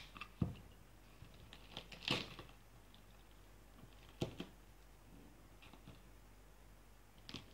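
A scored pomegranate being pried apart by hand: a few separate sharp cracks and tearing sounds from the rind as the segments split open.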